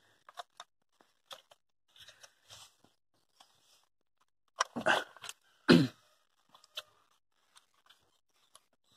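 Scattered small clicks and scrapes as a new engine coolant temperature sensor is fitted by hand into its housing on a Ford Fiesta engine. A louder cluster of scraping comes between about four and a half and six seconds in, ending in a short sound that falls in pitch.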